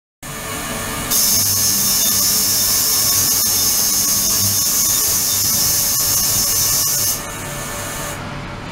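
Ultrasonic cleaning tank running with water in it: a steady hiss with several faint steady tones and a low hum. The high hiss grows much louder about a second in and falls back about a second before the end.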